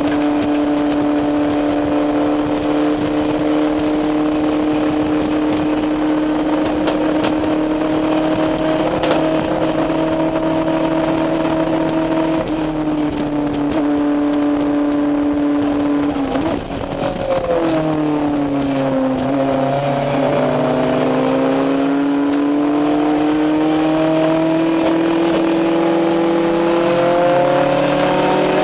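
Honda club race car's four-cylinder engine heard from inside the cockpit, running hard at steady high revs. About two-thirds of the way through it drops briefly in pitch and level, then climbs steadily as the car accelerates again, with road and wind noise underneath.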